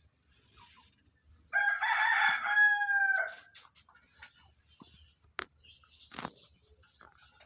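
A rooster crows once, a loud call of about two seconds that drops slightly in pitch at its end. Two short sharp knocks follow a few seconds later.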